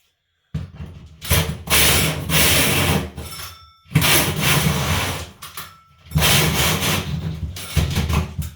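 Power drill cutting into a double-layer plasterboard ceiling, running in three long bursts with short pauses between them.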